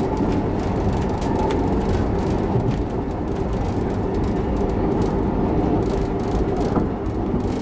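Heritage passenger train running along the track, heard from inside the coach: a steady rumble of wheels on rails with light clicks now and then.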